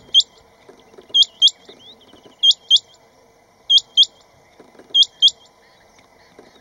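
Rain quail giving its mating call: sharp, high, upward-sweeping whistled notes in pairs, five pairs at a steady pace of about one pair every second and a quarter.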